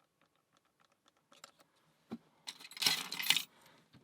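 Light clicking of a lock pick and tension tool working in a laminated steel padlock, then a brief loud metallic jingle and rattle of the tools and lock about two and a half seconds in.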